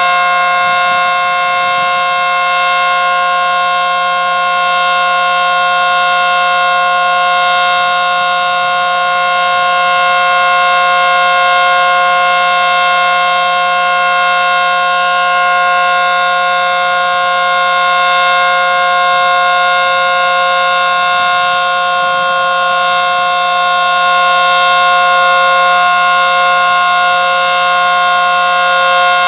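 ACA Screamer S-10 outdoor warning siren, reverse-wired, sounding a steady tone that holds one pitch throughout, very loud and unchanging.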